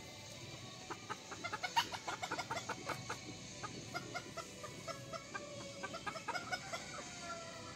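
Chickens clucking in many short, quick calls, busiest and loudest about two seconds in.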